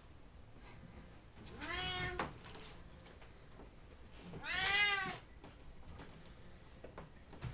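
Bengal cat meowing twice: two drawn-out calls that each rise and fall in pitch, the second louder and longer.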